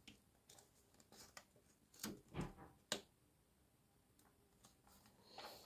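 Near silence, broken by a few faint, brief rustles of magazine pages being turned: three about two to three seconds in and one more near the end.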